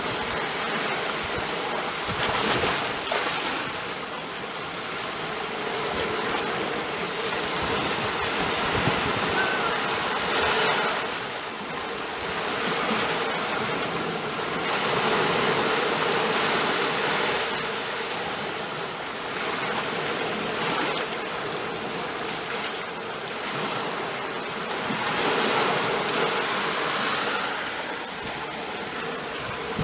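Sea waves washing in continuously, swelling and easing every several seconds.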